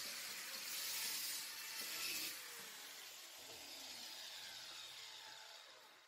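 Grooves being cut into a steel piece to seat a chain: a rasping metal-cutting noise, loudest for the first two seconds or so, then fading away.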